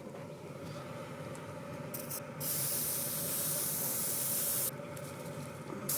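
Aerosol air-freshener can spraying a long hiss from about two and a half seconds in until nearly five seconds, starting again just before the end, over the steady whoosh of the 2006 Pontiac G6 GTP's HVAC blower running on high and drawing the spray in through the fresh-air intake to deodorize the system.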